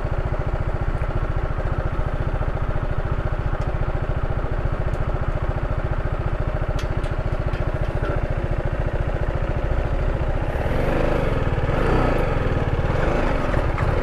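Sport motorcycle engine idling with a fast, even, low pulse, getting a little louder and fuller about ten seconds in as the bike moves up.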